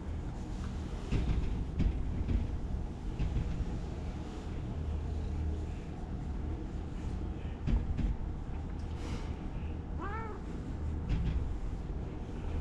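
A cat meows once, a short call that rises and falls, about ten seconds in. Under it runs a steady low rumble, with a few short knocks.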